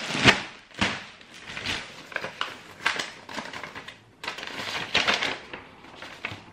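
Clear plastic bag around a horse rug crinkling and rustling as it is handled, then a sheet of paper rustling as it is taken out and unfolded, in irregular crackles and snaps.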